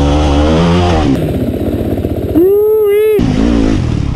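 Dirt bike engine running low and uneven, then revved sharply once about two and a half seconds in for under a second before dropping back.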